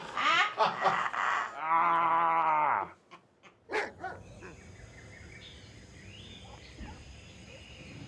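People laughing in short bursts, then one drawn-out vocal cry about a second long that falls in pitch at its end. After a brief silence and a click, only a faint steady background hiss remains.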